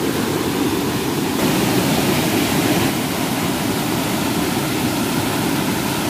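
A waterfall's falling water, a steady rush of noise.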